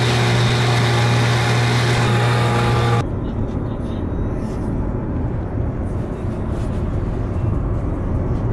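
Small dinghy outboard motor running steadily at speed, a loud even drone with the wake's water rushing under it. About three seconds in it stops abruptly and a quieter, even road rumble inside a moving car's cabin takes over.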